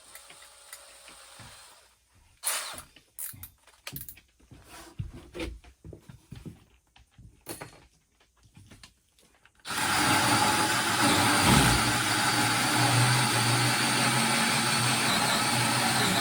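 A few handling clicks and knocks, then about ten seconds in a power drill starts and runs steadily, driving a 3 1/2-inch hole saw through the floor to cut the toilet drain hole.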